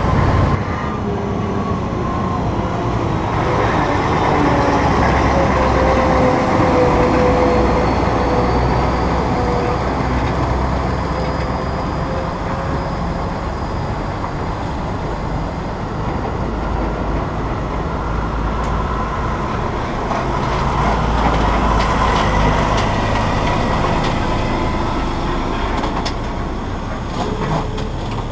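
Heavy-haulage truck engines running under load and the tyres of a multi-axle trailer rolling as the rig crawls past, the sound swelling twice as the vehicles go by, with a steady engine tone sinking slightly in pitch.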